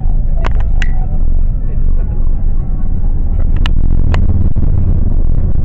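Car cabin rumble while driving: a loud, steady low rumble, broken by a few sharp clicks, two just under a second in and two near the four-second mark.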